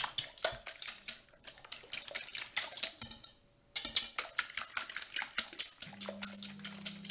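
Raw eggs being beaten with a fork in a bowl: quick clicking and scraping of the fork against the bowl, stopping briefly about three seconds in. A low steady hum comes in near the end.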